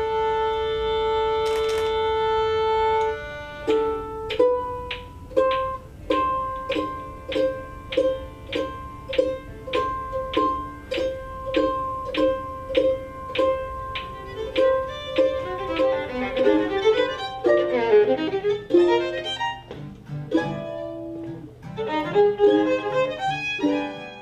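A fiddle holds one long bowed note for about three seconds. Then a plucked string note repeats at an even pulse, and several string instruments start noodling more busily: a string band tuning and warming up before a song.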